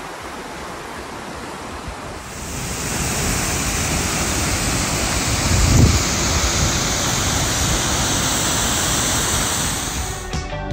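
Wind rushing over the microphone as a steady hiss that grows louder about two seconds in, with a strong low gust buffeting the microphone just before six seconds. Music with a plucked guitar comes in at the very end.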